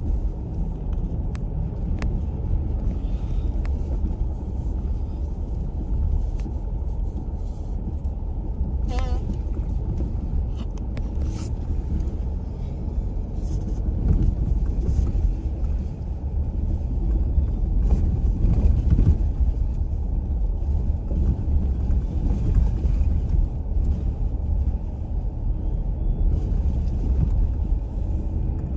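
Steady low rumble of a car driving over an unpaved dirt road, heard from inside the cabin, with a few sharp clicks from the road surface.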